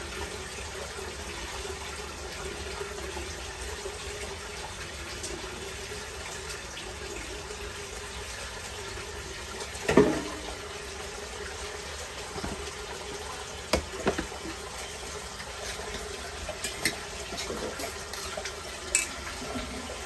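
A steady, water-like rushing noise in a kitchen, broken by a few sharp clinks of metal kitchenware, the loudest about halfway through.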